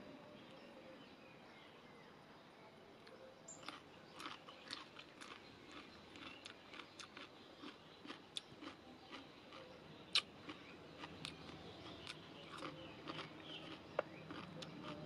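A person eating crisp food, chewing and crunching: a run of small sharp crunches that starts a few seconds in, with a louder crack about ten seconds in and another near the end.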